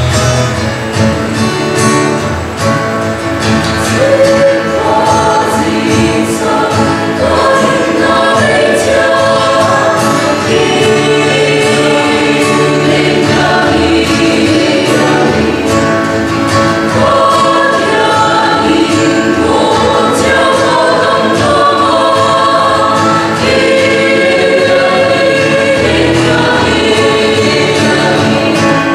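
Mixed choir of men and women singing a hymn, accompanied by an acoustic guitar.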